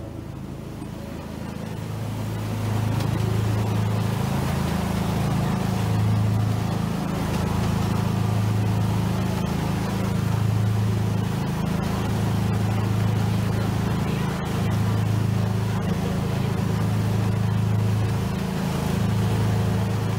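Miniature park railway train rolling through a tunnel: a low rumble of wheels on the rails, echoing off the tunnel walls, growing louder about two seconds in as the train goes in. A deep drone in it swells and fades about every second and a half.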